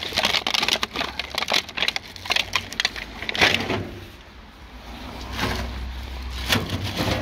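Plastic bag of litter crinkling and rustling as it is stuffed through the slot of a metal litter bin, with knocks against the bin, busiest in the first three seconds or so. A low rumble builds faintly near the end.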